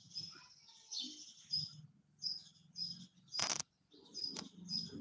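Small birds chirping faintly and repeatedly, short high chirps about one or two a second, with a single sharp knock a little past halfway.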